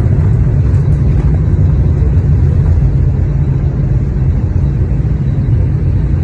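Steady, loud low rumble of a moving vehicle, heard from inside.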